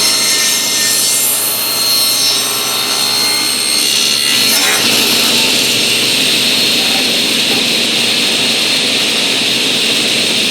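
Table saw running, its blade cutting a bevel along the edge of a pine board for about the first four and a half seconds, then spinning on without cutting.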